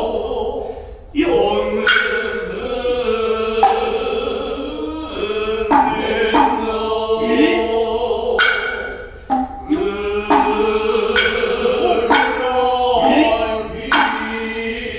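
Noh chant (utai): low male voices intoning long, slowly wavering lines in unison, punctuated every second or two by sharp strokes of the Noh shoulder and hip drums (kotsuzumi and ōtsuzumi).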